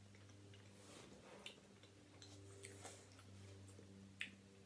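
Near silence: faint, scattered mouth clicks from chewing a bite of ham and cheese panini over a low steady hum, with one sharper click about four seconds in.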